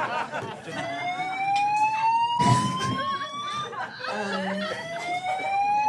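A building's voice-evacuation fire alarm sounds rising whoop tones, each sweeping slowly upward for about three seconds; a second whoop starts about four seconds in. A brief noisy burst comes about two and a half seconds in.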